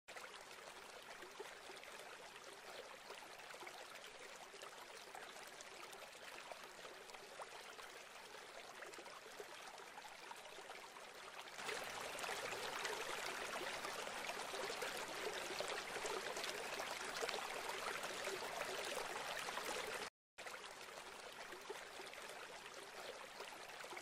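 Faint, even rush of running water with no distinct splashes or tones. It gets louder for several seconds from about halfway, then drops out for a moment near the end.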